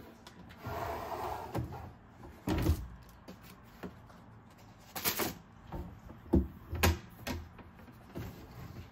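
Pull-out kitchen trash drawer slid open and pushed shut, with a short sliding rush about a second in and then a series of sharp knocks and thuds as a paper container is dropped in and the drawer closes.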